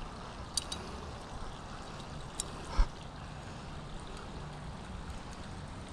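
Steady outdoor noise like trickling water, with a few small clicks and a sharper knock about three seconds in from pliers working a deep-set hook out of a sunfish's throat.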